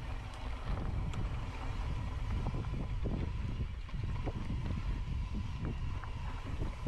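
Wind buffeting the microphone on a mountain bike moving over a dirt trail, with scattered clicks and rattles from the bike.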